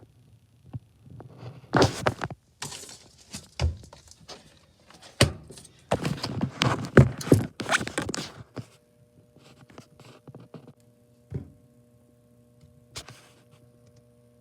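A run of thunks, knocks and scraping as a gas furnace is handled and taken apart, loudest in the middle. About two-thirds of the way through, a steady low hum starts.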